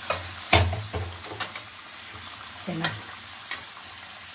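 Marinated chicken pieces sizzling in hot oil in an aluminium kadai, a steady hiss broken by a few sharp knocks of a spatula being stirred against the pan, the loudest about half a second in.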